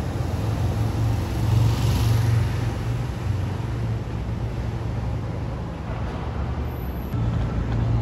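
Low, steady rumble of motor vehicles and engines, with a louder swell about two seconds in, like a vehicle passing. Near the end the sound changes suddenly to a louder low hum.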